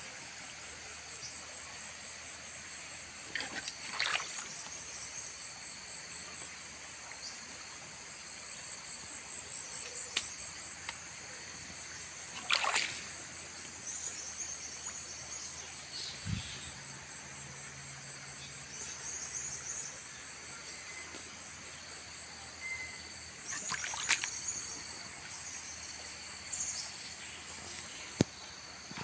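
Fast-flowing river rushing and swirling past the bank, with a steady high insect chorus, crickets or cicadas, above it. A few short, sharp sounds stand out, the loudest about four, twelve and twenty-four seconds in.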